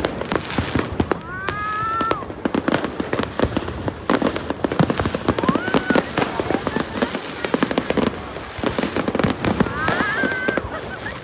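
Fireworks going off in a rapid string of bangs and crackles. Whistling shells rise in pitch about a second in, again midway and near the end.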